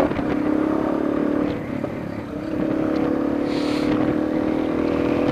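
Yamaha Lander 250 single-cylinder four-stroke engine running steadily while being ridden, easing off briefly about two seconds in and then pulling again.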